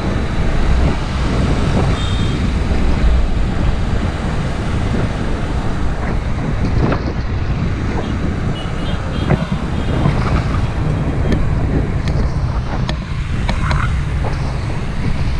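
Wind rushing over the microphone of a moving bicycle, with road and traffic noise beneath it and a few short clicks in the second half.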